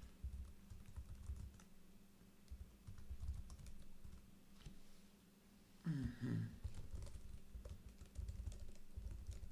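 ThinkPad laptop keyboard being typed on in irregular runs of light keystrokes with short pauses. A brief murmured voice comes in about six seconds in.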